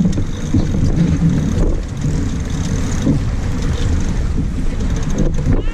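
Strong wind buffeting the microphone aboard a sailboat under way, a steady loud rumble.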